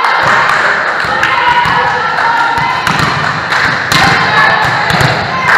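Volleyball thudding on a sports-hall floor several times as a player bounces it, over the calls and chatter of players in a large hall.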